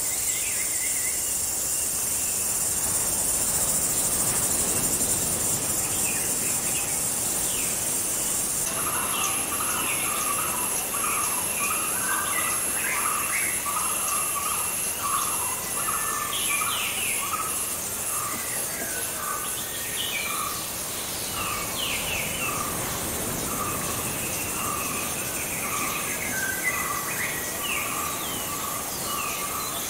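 Tropical forest ambience: a steady high drone of insects. About nine seconds in, birds start calling, one repeating a short call a little more than once a second among scattered chirps and trills.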